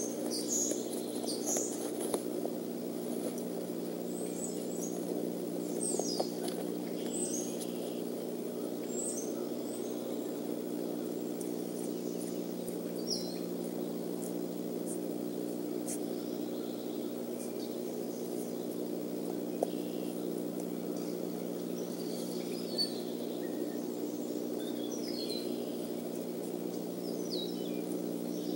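Short, high bird chirps come scattered and irregular, in clusters near the start and again near the end, over a steady low hum.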